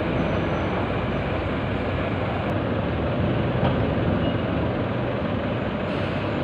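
Steady rumble of heavy diesel engines from container-yard machinery and road traffic, with no single event standing out.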